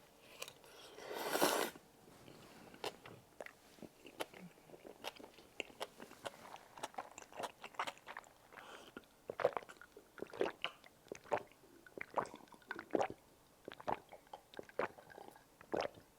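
Close-miked mukbang chewing of tteokbokki: many small wet, sticky mouth clicks and smacks while the food is chewed. A short rush of noise comes about a second in.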